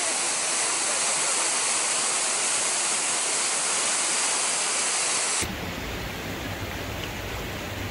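Water rushing steadily under the ice of a frozen waterfall. About five seconds in, it cuts to the quieter flow of an open creek with a low rumble underneath.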